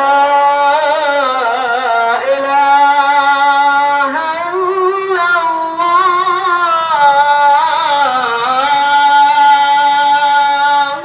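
A single voice singing long held notes that waver and bend in ornamented runs. It starts and stops abruptly.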